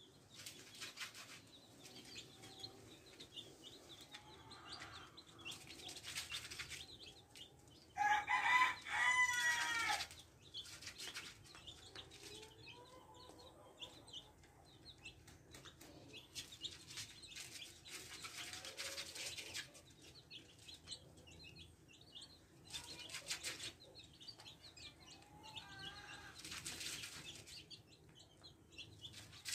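Month-old black chicks of an Indonesian breed peeping faintly as they feed, with a louder run of peeps about eight seconds in.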